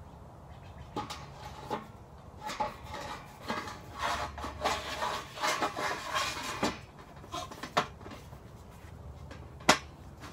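Aluminium box rail being slid down over an inch-and-a-half EMT conduit post: a few clanks, then a stretch of metal-on-metal scraping and rattling, ending with one sharp knock near the end.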